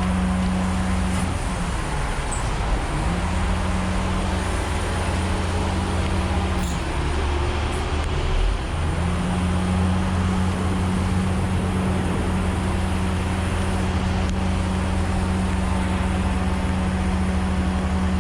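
Heavy recovery truck's diesel engine running its hydraulics for the winch wire: a steady low hum that drops away twice for a few seconds, then holds steady.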